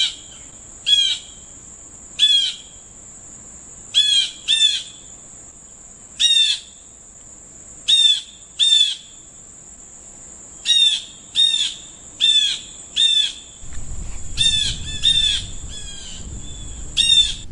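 Blue jay giving repeated harsh 'jay' calls: about sixteen short, down-slurred notes, often in quick pairs, spaced a second or two apart. A steady high whine runs underneath, and a low rumble joins in the last few seconds.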